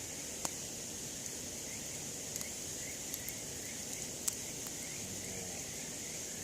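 Steady high-pitched chorus of evening insects, with a few sharp pops from a wood campfire crackling.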